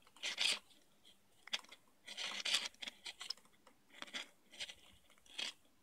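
Faint handling noise: short, irregular rubbing and scraping sounds as fingers work a stranded wire into the input terminal of a small DC-DC converter circuit board.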